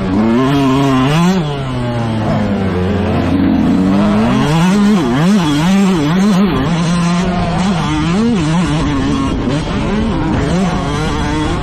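A racing engine at full load, its pitch rising and falling over and over as it revs up and drops back, one rev cycle after another.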